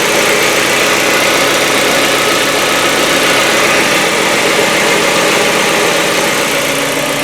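Hyundai Getz engine idling steadily, with no tapping from the hydraulic valve lifters: the start-up lifter noise has died away.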